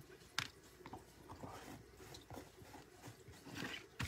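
Faint clicks and taps of small plastic chalk paste tubs and their lids being handled, closed and set down on a tabletop, with one sharper click about half a second in and another near the end.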